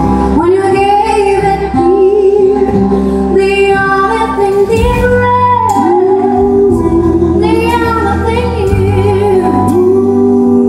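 A woman singing live into a microphone with a band backing her: long held notes, some wavering, over a steady bass line.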